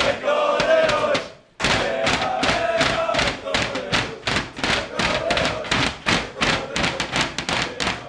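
Footballers drumming their hands on the locker name panels of a dressing room: a fast, steady beat of thuds that starts about a second and a half in, with men's voices shouting over it.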